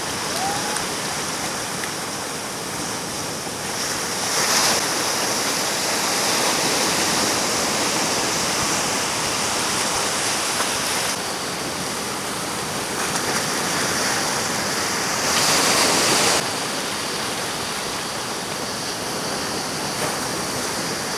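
Ocean surf: a steady rush of breaking waves and white water, swelling louder as a wave breaks about four seconds in and again around two-thirds of the way through.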